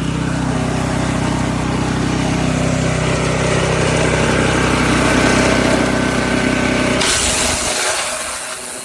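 Forest Master FM6DD wood chipper's 6 hp petrol engine running steadily. About seven seconds in, the engine note cuts out, leaving a hiss that fades away.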